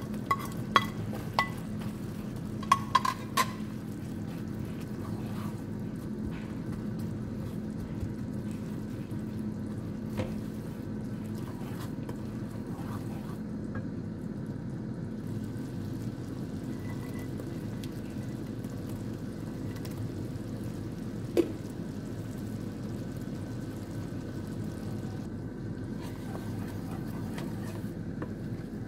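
Fish sauce and sugar mixture simmering steadily in a pan, with sharp taps of a wooden spatula against the plate and pan a few times in the first three seconds and once more about 21 seconds in.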